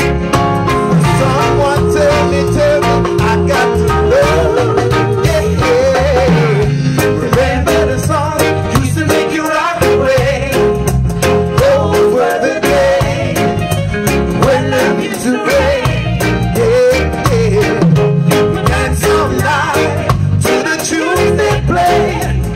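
Live reggae band playing: several singers singing together over drums, bass and electric guitar, with a steady beat.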